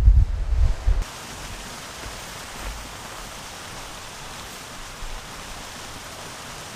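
Wind buffeting the microphone for about the first second, then a steady, even hiss.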